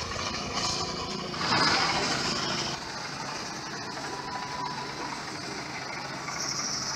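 8060 rice combine harvester's engine running as the machine drives along. A louder rush of noise starts about a second and a half in and cuts off abruptly near three seconds, leaving a steady engine sound with a low hum.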